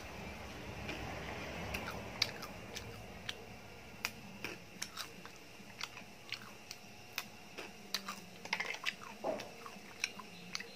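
A person chewing crunchy potato snack chips with the mouth close to the microphone: a quick series of sharp, separate crackles.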